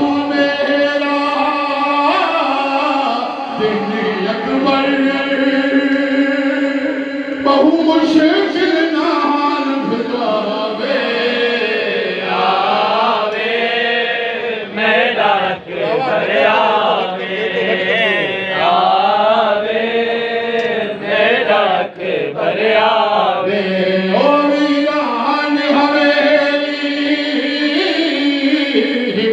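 Voices chanting a noha, a Shia Muharram lament, in long drawn-out notes that bend up and down.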